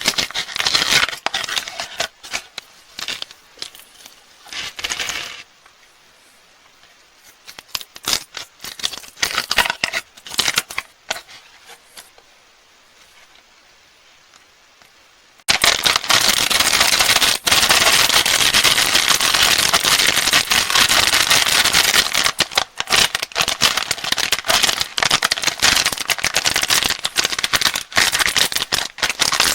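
Crinkly candy wrappers being handled and torn open. Dense crackling for about five seconds, then sparser, quieter crackles, then loud continuous crinkling from about halfway through.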